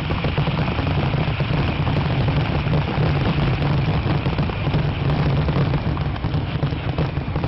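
Fireworks going off in a dense, continuous barrage: loud rapid bangs and crackling packed close together over a steady deep booming.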